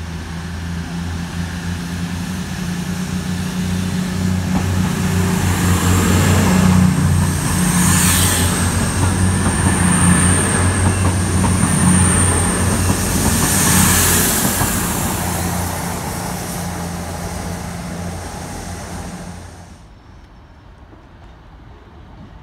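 Class 222 Meridian diesel multiple unit pulling out of the station. Its underfloor diesel engines run with a steady low drone that grows louder as the train goes by, then fades. The sound drops away sharply near the end.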